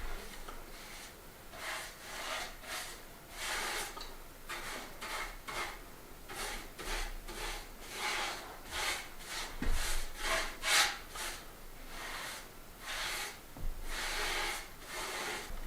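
A paintbrush loaded with wood finish is stroked over timber boards, a repeated scrubbing sound at about one or two strokes a second, uneven in strength. The boards are getting their first coat, brushed across the grain and then along it.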